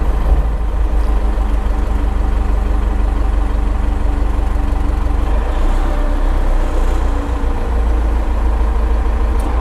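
Diesel engine of a fork-equipped loader running steadily close by, a constant deep drone with no change in speed.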